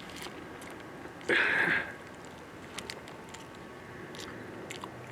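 Someone chewing pepper jack cheese close to the microphone, with soft mouth clicks. About a second in there is a loud, brief burst of noise lasting about half a second.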